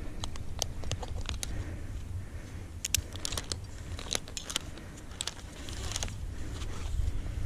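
Metal climbing hardware being handled on a harness: carabiner gates and a rope pulley clicking and clinking in irregular bursts, thickest through the middle seconds, with rope and gloves rustling, over a steady low rumble.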